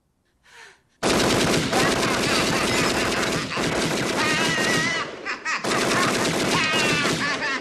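Tommy gun firing in long, rapid bursts, with a voice yelling over the gunfire. The firing starts about a second in, breaks off briefly past the middle, then resumes.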